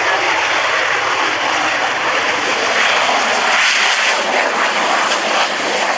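Saab 35 Draken jet fighter's engine at high power on its takeoff roll: a loud, steady rushing roar.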